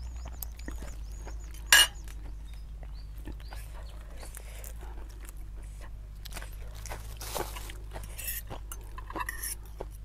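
Close-miked eating sounds: chewing and crunching of food, with metal cutlery clinking against the serving pan. A single loud, sharp clink comes nearly two seconds in.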